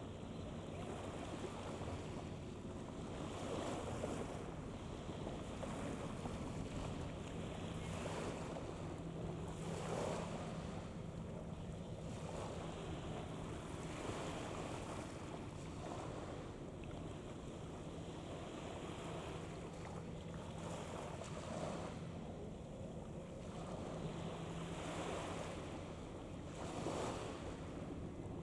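Wind gusting across the microphone over the wash of water, with a faint low steady hum underneath that comes and goes.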